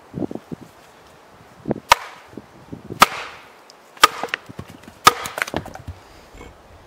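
Hatchet splitting firewood on a stump chopping block: four sharp chops about a second apart, with wood cracking apart, after a few dull knocks near the start.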